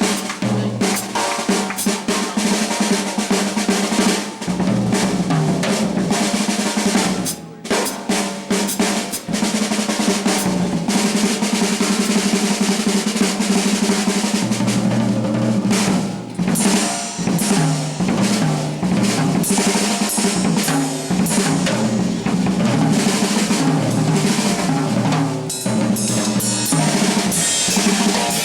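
Live jazz organ trio playing, the drum kit busy and prominent with snare, bass drum and cymbals, over a moving organ bass line.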